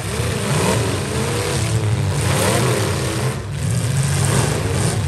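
Demolition-derby trucks' engines revving hard, the pitch rising and falling, over the steady running of other engines as the trucks push against each other in the mud.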